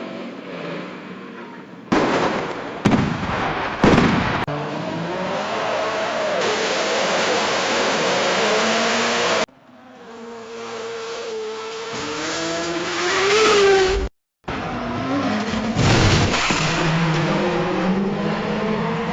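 Car crash sound effects: tyres skidding and squealing in wavering, gliding tones, broken by sharp metal impacts, three in the first few seconds and another about two-thirds of the way through. The clips change with abrupt cuts, including a brief dead silence.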